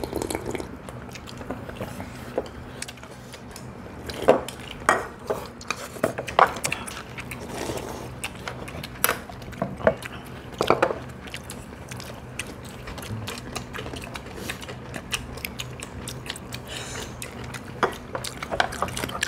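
Spoons and chopsticks clicking and scraping against bowls and dishes during a meal, in scattered short clicks, over a faint steady low hum.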